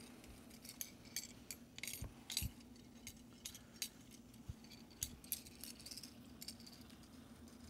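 Faint, scattered clicks and clinks of a hand-held metal lemon squeezer as lemon halves are pressed, over a steady low hum.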